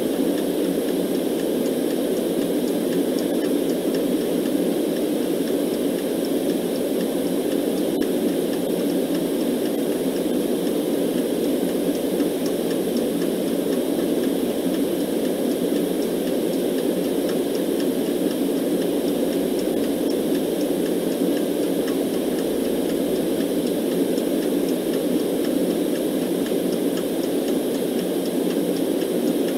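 Steady generated noise track: an even, unbroken rushing hiss with most of its weight low down, like a deep fan or distant engine, unchanging throughout.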